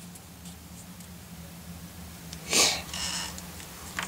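Quiet room with a low steady hum. About two and a half seconds in comes one short breath through the nose, and a few faint handling clicks follow near the end.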